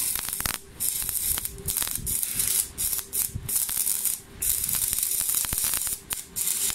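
Stick (MMA) welding arc from a Stahlwerk AC/DC 200 Puls inverter, burning a 2.4 mm electrode on 4 mm flat steel: a steady crackling hiss that cuts out briefly several times along the way.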